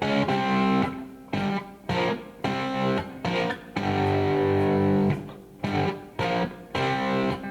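Background music led by guitar, plucked and strummed chords in short rhythmic phrases with brief stops and one longer held chord near the middle.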